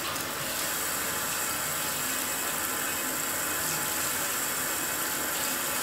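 Water tap running steadily into a sink, rinsing shampoo out of a doll's hair.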